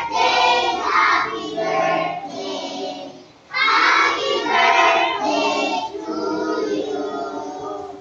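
A group of young children singing together in unison. There are two long sung phrases, with a short breath break about three and a half seconds in.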